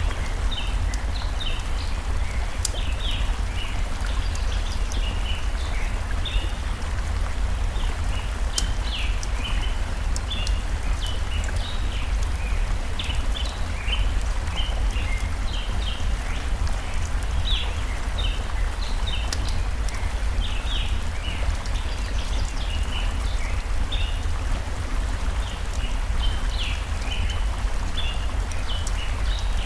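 Forest stream running with a steady low rush, small birds chirping repeatedly throughout, and now and then a sharp crackle from a campfire.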